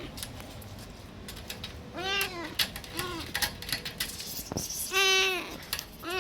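A kitten meowing repeatedly, calling to be let through a door. There are two longer meows about two and five seconds in, a short one near three seconds and another starting at the end, each rising then falling in pitch, with light clicks between them.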